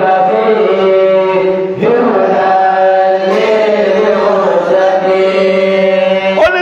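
A man chanting in long, held melodic notes, with short breaths between phrases about two and three seconds in, in the style of Qur'anic recitation.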